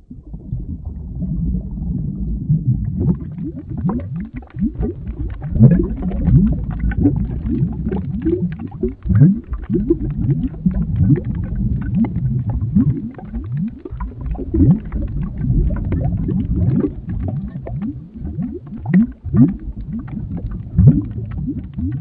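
Liquid bubbling at a full boil: a dense, continuous run of deep gurgling plops, many of them sliding quickly upward in pitch.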